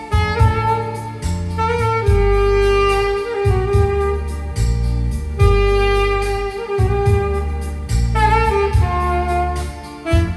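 Alto saxophone playing a slow melody of long held notes over keyboard accompaniment with a bass line and a steady beat.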